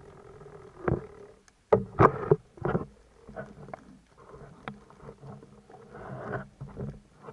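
Underwater sound of unknown origin: a run of irregular sharp knocks and short rasping pulses, loudest and closest together about two seconds in, then weaker and more spaced, over a faint steady low hum.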